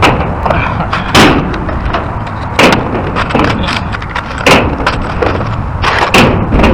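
Sharp impacts: about four loud bangs at uneven spacing of a second and a half to two seconds, with fainter knocks between, over a steady low rumble.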